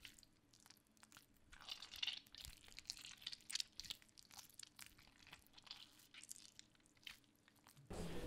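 Near silence, with faint scattered clicks and crackles throughout.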